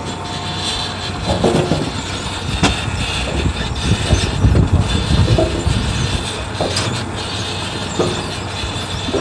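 Farm machinery running with a steady low hum, with irregular clattering and knocks on top, busiest around the middle.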